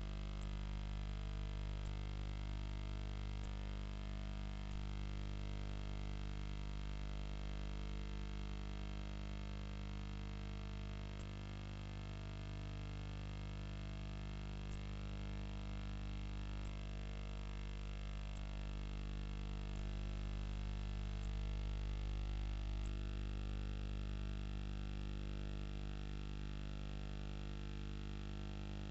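Steady electrical mains hum, a low buzz with many overtones that does not change, with a few faint ticks.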